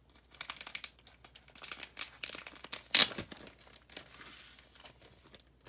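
Crinkling and crackling of a plastic comic-book bag being handled, in irregular bursts, with one loud sharp crackle about three seconds in.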